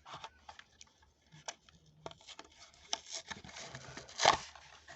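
A toy car's cardboard and plastic blister packaging being handled and torn open: scattered clicks and rustles, with one louder ripping rasp about four seconds in.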